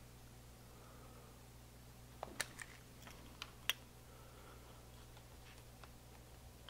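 A handful of short, light clicks and taps, bunched about two to four seconds in with a few fainter ones later, over quiet room tone with a steady low hum.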